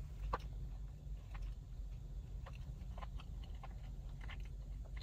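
Faint chewing with small scattered mouth clicks as a soft, syrupy, cake-like sweet is eaten, over a low steady hum inside a car.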